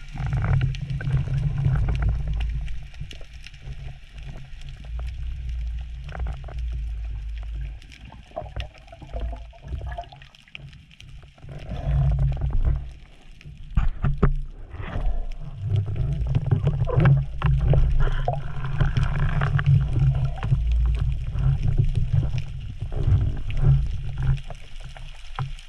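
Muffled underwater sound heard through a diving camera's housing: a low rumble of moving water with scattered clicks and sloshing, dropping quieter for a while in the middle.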